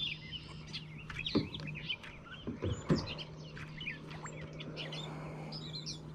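Songbirds chirping and singing from the surrounding trees, many short calls overlapping, over a steady low hum, with a few brief low sounds a second or so in and again near the middle.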